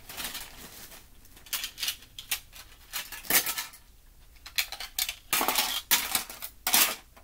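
Plastic perler bead pegboards clacking against one another as they are handled and stacked, in a series of short clatters, the sharpest about halfway through.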